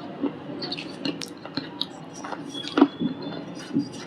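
Brittle shale stone being crunched: irregular sharp cracks and crackles, the loudest a little under three seconds in.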